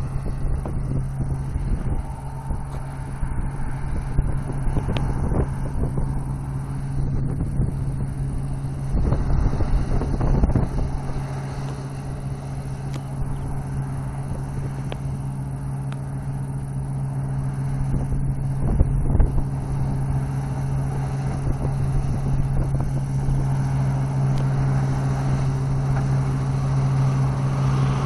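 Deutz-Fahr 5670 HTS Balance combine harvester running under load while harvesting grain, a steady engine and threshing drone that grows louder near the end as the machine comes closer.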